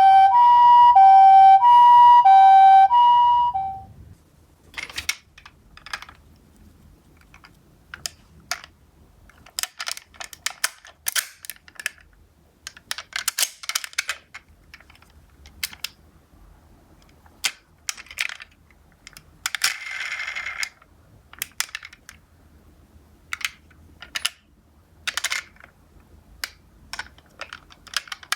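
Japanese ambulance two-tone "pee-po" siren, alternating between a higher and a lower pitch about twice a second, then cutting off about four seconds in. After it come irregular sharp clicks and clacks of small die-cast toy cars knocking on a hard surface, with a longer rattle about twenty seconds in.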